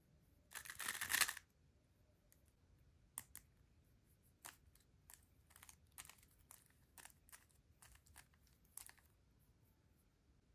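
3x3 Rubik's cube layers being turned by hand: a quick, dense rattle of turns about half a second in, then a string of separate clicking turns, one at a time, through the middle.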